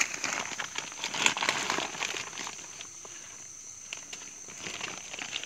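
Rustling and crackling of close handling as a freshly trapped rat is held and put away: many small irregular clicks and rustles, busier in the first couple of seconds, then sparser. A steady high-pitched whine runs underneath.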